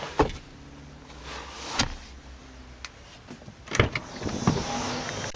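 A few light clicks and knocks of handling inside a 2009 Dodge Ram crew cab, then the rear door's interior handle is pulled and the latch releases with a clunk about four seconds in. After the clunk a steady background hiss rises.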